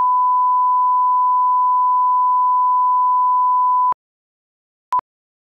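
A steady electronic test tone, a single pure pitch held for about four seconds, cuts off suddenly. A second later comes one short beep at the same pitch, the start of a once-a-second countdown of pips.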